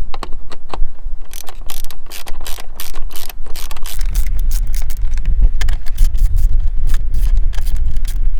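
Ratcheting socket wrench clicking in quick runs as it unscrews the 8 mm bolts on a Honda CR-V's air filter housing cover. A low rumble joins about four seconds in.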